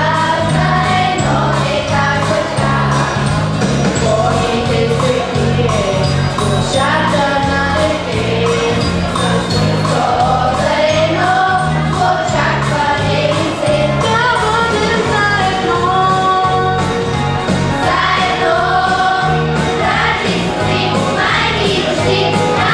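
Children's choir singing a Christmas song over a recorded backing track with a steady beat.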